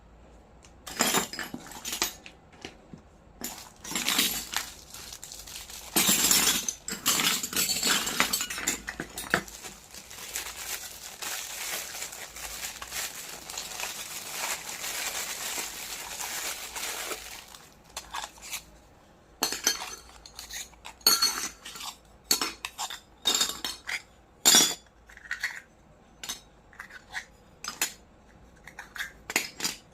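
Miniature toy kitchenware being handled: many light clinks and taps. A long stretch of continuous rustling and scraping fills the middle.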